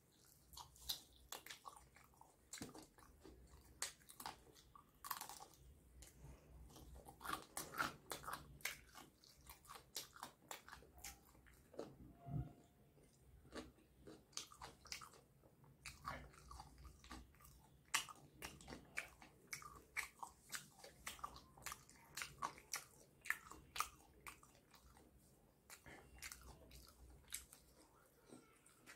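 Close-miked biting and chewing of fried chicken drumsticks, with many irregular sharp crunches from the crispy breaded coating.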